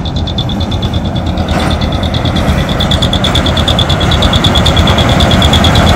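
Narrow-gauge mini train's engine running and growing louder as it approaches, over a steady, rapidly pulsing high-pitched tone.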